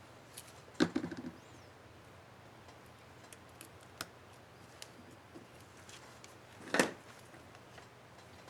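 Small plastic clicks from a laptop keycap and its retainer clip being handled and fitted on an HP DM4 keyboard. There are two sharp snaps, one about a second in with a brief rattle after it and one near the end, with faint ticks between.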